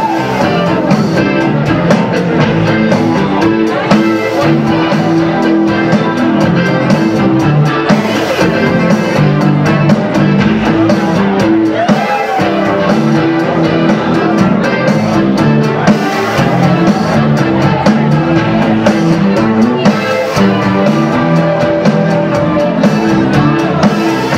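Indie rock band playing live, drum kit and guitar to the fore, with a steady beat and no pause.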